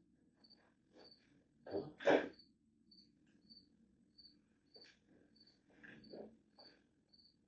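A cricket chirping steadily, a short high chirp about twice a second, with scattered knocks and clatter of handling, the loudest a pair about two seconds in.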